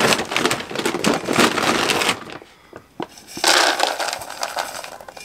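Dry cat food kibble being scooped from its bag into a plastic container: crunchy rattling and rustling in two spells, with a short pause between them about two seconds in.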